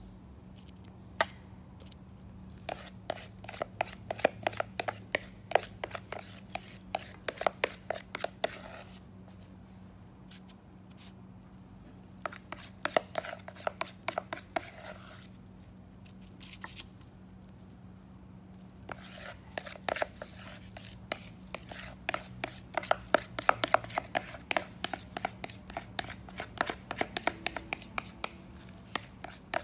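A spoon scraping and clicking rapidly against a mixing bowl and paper muffin liners as batter is scooped and dropped into a muffin pan. It comes in three spells of quick clicks with short pauses between them, under a faint steady hum.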